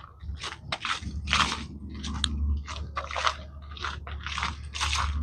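Footsteps crunching on a trail at a steady walking pace, about two steps a second, over a low steady rumble that starts about a second in.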